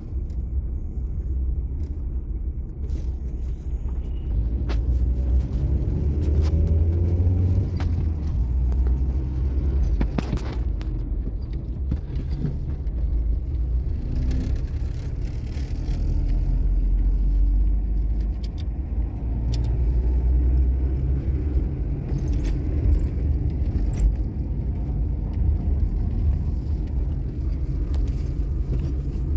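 Road noise inside a moving car: a steady low rumble of engine and tyres, with scattered light clicks and knocks.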